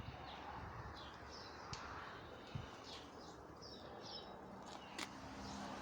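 Small birds chirping over a low background hum, in short high chirps repeated every half second or so. There are a few faint knocks, and a sharp click about five seconds in.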